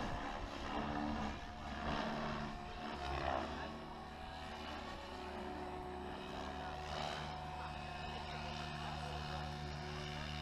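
Radio-controlled model aircraft in flight: a steady motor and propeller hum with several held tones, a little louder in the first few seconds.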